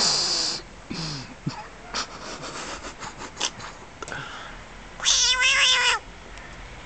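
A cat yowls once, a wavering cry about a second long near the end, after a short hissing rush of noise at the start and a few scattered clicks.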